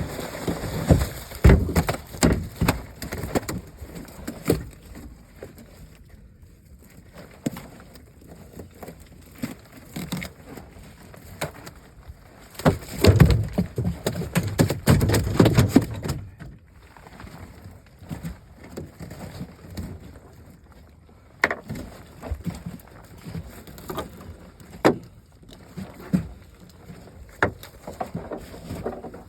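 Irregular knocks and thumps in a fishing boat as nets and fish are handled, with louder bursts of thrashing and banging near the start and again around halfway through.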